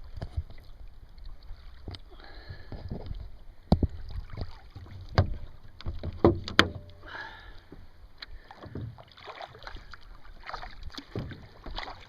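Water sloshing and splashing against a sit-on kayak's hull as it moves under sail, with scattered sharp knocks and clicks, the loudest a few near the middle.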